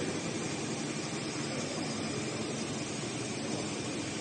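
Steady mechanical running noise of a computerised heating-wire sewing machine stitching, an even hum with no distinct strokes.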